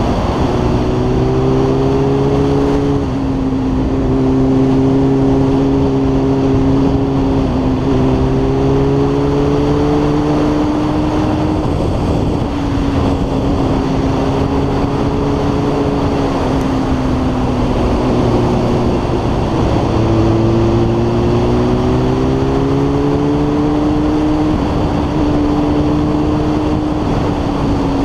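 Sport motorcycle engine running at speed, its pitch falling and rising with the throttle through the bends, over a steady rushing noise.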